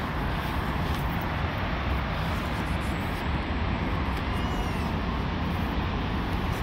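Steady low rumble and hiss of outdoor background noise, with a faint high chirp about four and a half seconds in.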